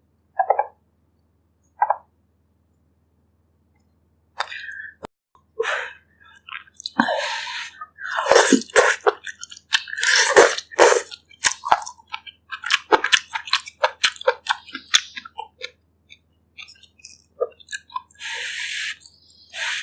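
Close-miked chewing and mouth sounds of someone eating a bak kut teh meal. There are two short soft sounds at the start, then irregular wet chewing and smacking from about four seconds in, busiest in the middle, with a longer hissy sound near the end.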